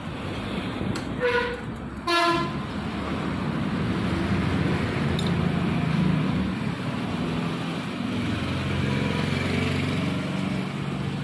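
A horn sounds twice, short toots about a second apart. Then a vehicle passes with a steady rumble.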